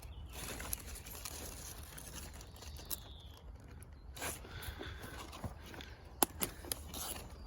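Leaves and stems rustling and crackling as plants are handled, with scattered sharp clicks, a few close together near the end.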